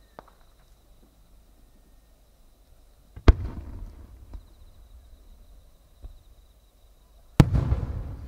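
Japanese aerial firework shells going off: two sharp booms about four seconds apart, each followed by a rolling echo that dies away.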